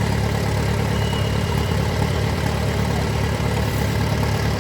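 Heavy diesel tractor engine running steadily at an even, low pitch, without revving.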